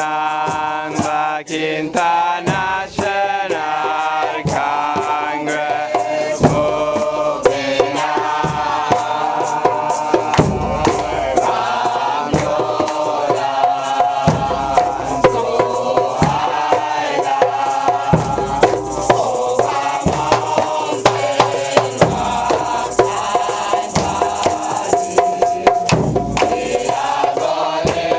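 A congregation of men and women chanting a hymn together in long held notes, with drums keeping a steady beat. From about ten seconds in, a deep drum stroke falls about every two seconds.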